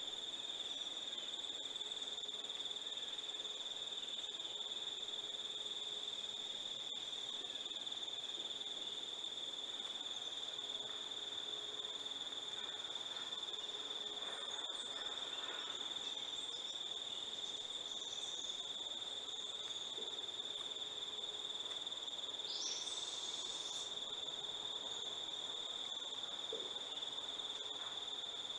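Steady, unbroken high-pitched insect trilling, with a few faint brief chirps over it.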